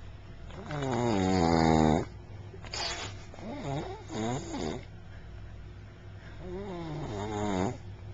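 A woman snoring in her sleep: three long snores a few seconds apart, each wavering in pitch, the first the loudest.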